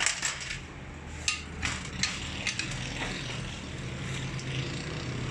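Small metal fittings from a diesel injection pump clinking against a steel parts bowl and the pump body: a handful of sharp clicks and taps, most in the first three seconds, over a steady low hum.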